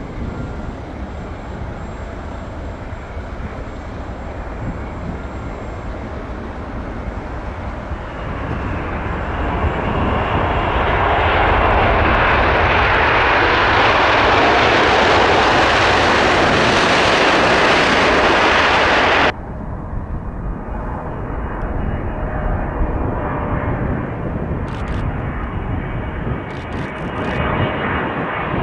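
Jet airliner engines growing steadily louder to a loud, rushing peak, then cutting off abruptly about two-thirds of the way in. What follows is the quieter, steady engine noise of a Qatar Cargo Boeing 777 freighter on final approach.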